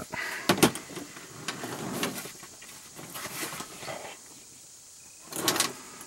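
Handling noise from a nylon tool bag and tools: fabric rustling and scraping as a large clamp meter with its test leads is pulled out of the bag, with a sharp click about half a second in and a louder rustle near the end.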